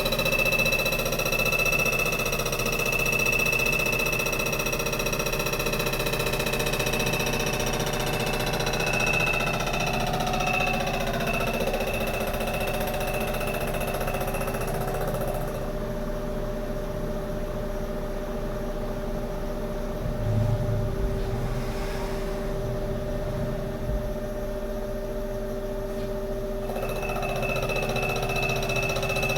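CNC machine running while cutting a Ford 6.4L diesel piston: a steady high spindle whine over a lower hum. The high whine drops away about halfway through and comes back near the end.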